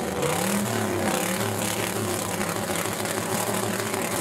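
Custom car's engine revving hard as it shoots flames from its exhaust, the revs swelling up once near the start and then held high.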